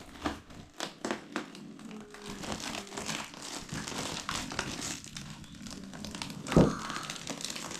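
Packaging crinkling and rustling as laser-engraver parts are handled and unwrapped, with scattered small clicks and one louder knock about two-thirds of the way through.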